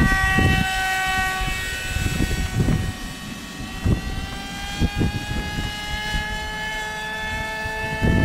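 RC model airplane's motor giving a steady, high whine as it flies past, its pitch drifting slowly. Gusts of wind buffet the microphone.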